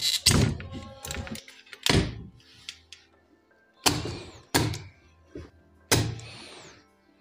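Spring-loaded desoldering pump (solder sucker) firing at a circuit board's solder joints: several sharp thunks, two of them trailing a short hiss of sucked air. It is pulling molten solder from the leads of a blown filter capacitor to free it. Faint background music underneath.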